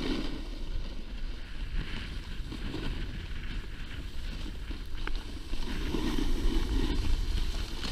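Wind rushing over an action camera's microphone while snowboarding downhill, with the board sliding and scraping over the snow; it gets a little louder about two-thirds of the way through.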